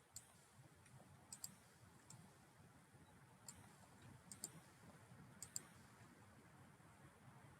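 Computer mouse buttons clicking faintly and sparsely, about eight clicks with several in quick pairs, over a faint low room hum.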